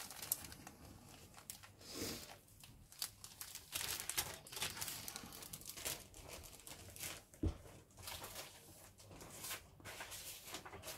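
Plastic parts bag crinkling and rustling in irregular bursts as it is handled. There is one soft knock about seven and a half seconds in.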